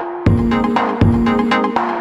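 Electronic background music: a stepping synth melody over a heavy beat that comes in about a quarter second in, with a strong bass thump roughly every three-quarters of a second.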